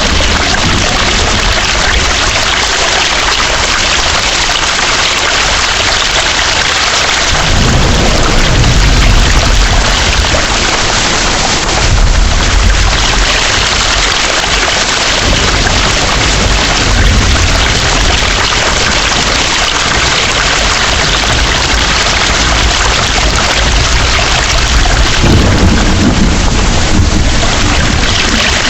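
Heavy rain falling steadily, with rolling thunder rumbling low from about seven seconds in until about fifteen seconds, then again near the end.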